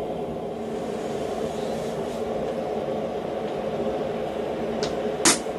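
Forge running with a steady hum, and near the end a couple of sharp metallic clinks as the tongs set the glowing steel blank on the steel block.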